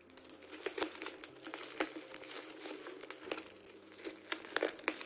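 Black plastic parcel wrapping with fragile tape crinkling and crackling as fingers handle it and pick at it, in irregular bursts with a few sharper snaps.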